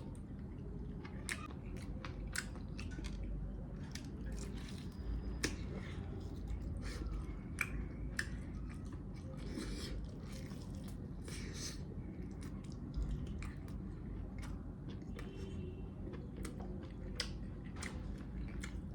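Close-up chewing and biting of spicy mutton leg meat, with irregular wet smacks and clicks of the mouth over a low steady hum.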